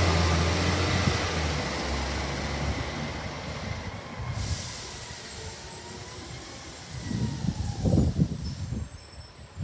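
A heavy vehicle moving off, its low engine sound fading over the first few seconds with a faint, slowly gliding whine. Low rumbles come near the end.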